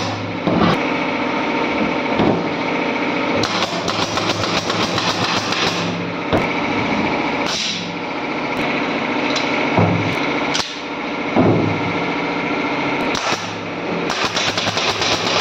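Pneumatic brad nailer firing nails into a plywood box, several sharp shots spaced a second or two apart, over a steady background hum.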